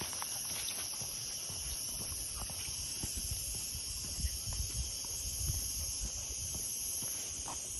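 A steady, high-pitched insect chorus, with soft low thumps and rustling about three to six seconds in.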